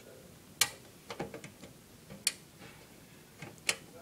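A screwdriver and screw clicking against the metal drive bay of a computer case while a disk drive is being screwed in: about five sharp clicks at uneven intervals.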